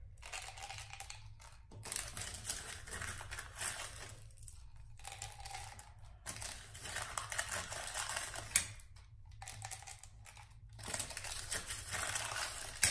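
Small mints clicking and rattling as they are handled and dropped from an Altoids tin into a plastic prescription pill bottle. The sound comes in short bouts with pauses, with a sharp click about two-thirds of the way through and another at the very end.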